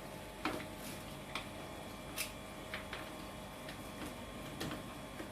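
Scattered light clicks and knocks, about eight of them at irregular intervals, over a faint steady hum.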